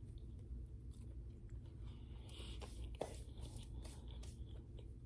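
Close-miked eating sounds: soft chewing with scattered small mouth clicks, over a low steady hum.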